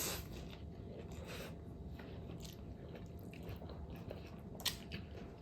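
Close-up eating sounds of someone biting and chewing pork fat: irregular wet smacks and soft crunches, with one sharper click near the end.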